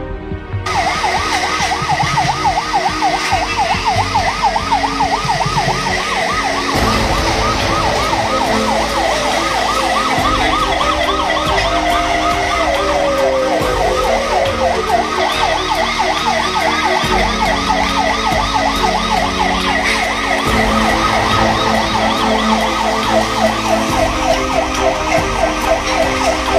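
Emergency vehicle sirens on a fast yelp, the pitch rising and falling several times a second, starting about half a second in; a second, slower siren wail rises and falls around the middle.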